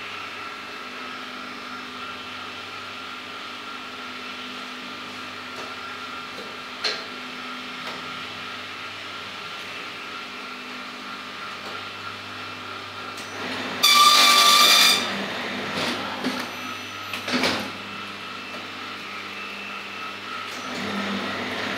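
Mini Bound A4 desktop perfect binding machine running with a steady hum. About fourteen seconds in, a loud high buzzing tone lasts about a second, followed by a few clicks and knocks.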